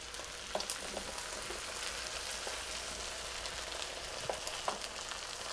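Hot sausage, potato and onion hash sizzling in a frying pan just off the heat as a wooden spatula scrapes it out into a bowl. There is a steady hiss with a few light scrapes and taps of the spatula.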